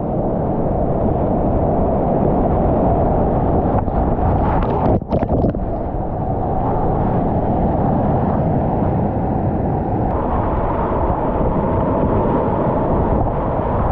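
Whitewater rapids rushing and churning around a kayak, a steady muffled noise that dips briefly about five seconds in.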